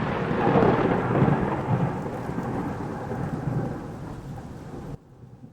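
Rolling thunder with rain, the rumble slowly fading and then cutting off suddenly near the end.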